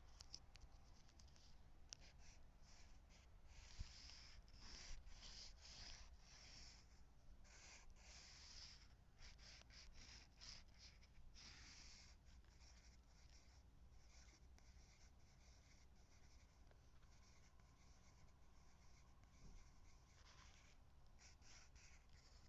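Faint scratchy strokes of drawing on paper, coming in quick irregular runs that thin out about halfway through.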